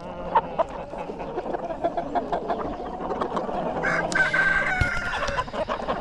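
A flock of cockerels clucking close around, with one crowing for about a second around four seconds in.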